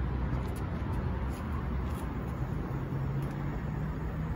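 Steady rushing of the two lit burners of an Alpen Camping Matterhorn gas cartridge stove, over a low rumble of road traffic that rises slightly in pitch near the end.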